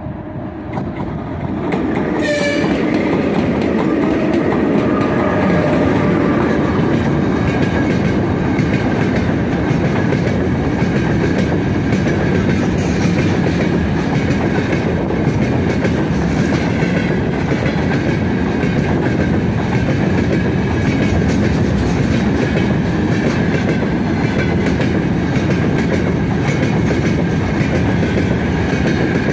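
A 3ES5K 'Ermak' electric locomotive's horn sounds hoarsely in the first couple of seconds, then the freight train runs past close by: a loud steady rumble of freight wagons with the clickety-clack of wheels over rail joints.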